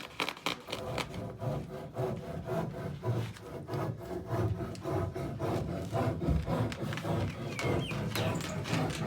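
Hand saw cutting through timber, steady back-and-forth strokes about two a second.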